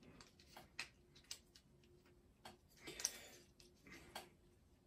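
Faint, irregular clicks of a Transformers Kingdom Tigatron figure's plastic joints and parts being moved by hand, with a brief soft rustle about three seconds in.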